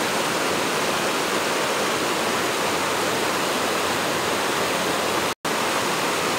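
Fast-flowing stream water rushing steadily, cutting out for a split second about five seconds in.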